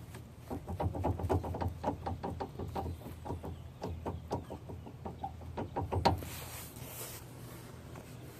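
Ram 1500 steering clicking as the wheel is worked back and forth: a fast, irregular run of clicks and knocks, from a steering shaft left loose at the steering rack's input-shaft pinch bolt. One louder knock about six seconds in, then a short rustling hiss.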